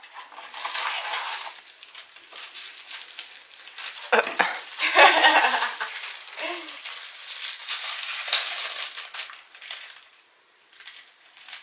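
Packaging of herbal infusion sachets being worked open by hand: a small cardboard box is pulled apart and the wrapped sachet strip rustles and crinkles in irregular bursts. The handling is loudest about four to five seconds in and quiets near the end.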